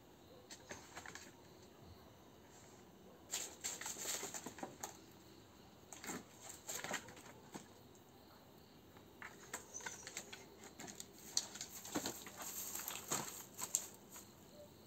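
A dog's claws scrabbling and scraping on a tree trunk and its paws rustling dry leaves as it leaps up the tree again and again, in irregular bursts of scratchy clicks. The dog is trying to get at an animal up in the tree.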